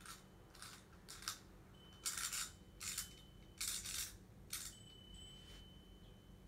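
About seven short, light clinking rattles at irregular intervals, the loudest in the middle.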